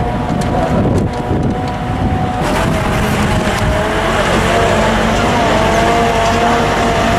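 Engine and drivetrain of a moving vehicle, heard from inside it: a steady whine that wavers slightly in pitch over a low rumble.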